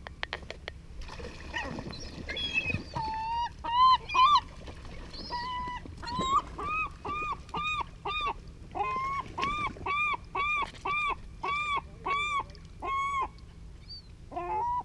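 A gull calling over and over, begging for fish scraps: loud, arching cries, a few scattered ones at first, then a fast steady run of about two to three a second from around six seconds in. A few sharp clicks sound just after the start.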